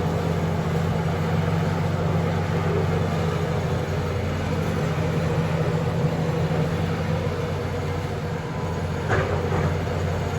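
A John Deere backhoe's diesel engine running steadily, with a short sharper noise about nine seconds in.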